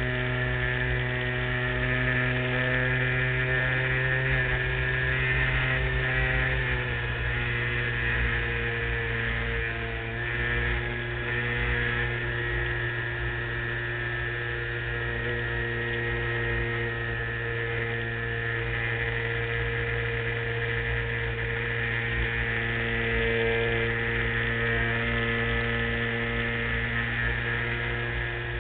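A LazyBee model airplane's motor and propeller droning steadily, heard from on board the plane; the pitch drops about seven seconds in and shifts a few more times.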